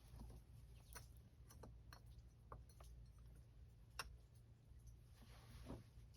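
Faint scattered clicks and light taps over a low steady hum, the sharpest click about four seconds in and a brief soft hiss shortly after: small metal engine parts being handled as a snowmobile cylinder is worked down over its new piston.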